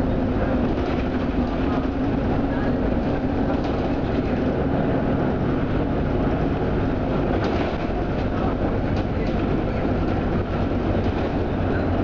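Jelcz 120M/2 city bus running on LPG, heard from inside the passenger cabin while driving: steady engine hum and road rumble, with a few light rattles from the body.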